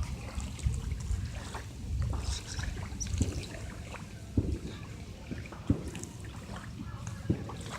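Low steady rumble of motorboats on the river, with water lapping and a few soft thumps spread through.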